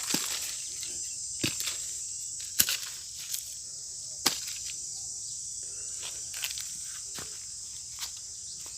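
A steady high-pitched drone of insects, with scattered sharp clicks and knocks, about seven, the loudest a little before the middle.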